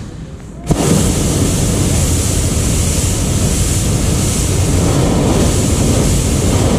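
Hot-air balloon's propane burner firing: a loud, steady roar that cuts in sharply with a click about a second in and holds unchanged.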